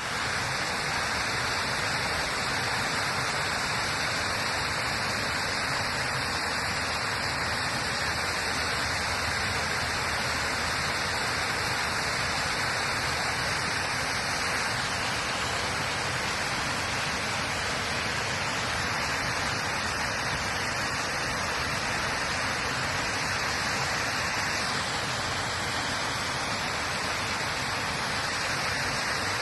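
Water rushing steadily and close by, an even, unbroken rush.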